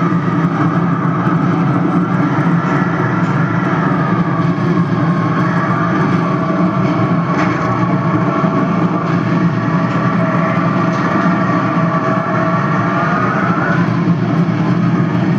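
Storm sound effect: a steady, loud rush of wind noise with a howling whistle that slowly wavers up and down in pitch.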